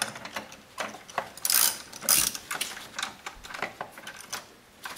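Socket wrench ratcheting in a run of quick, irregular clicks, with a couple of louder rasps about two seconds in, as a 10mm fastener at the car battery is turned.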